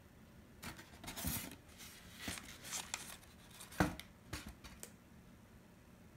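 A styrofoam box lid being lifted off and its packaging handled: a run of scraping and rustling noises, with a sharp knock near four seconds in.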